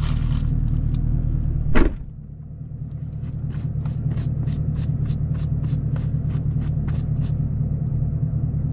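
A car door shutting with a single loud thump about two seconds in, over a steady low hum in the car's cabin. A few seconds later comes a run of evenly spaced ticking, about four a second, which stops before the end.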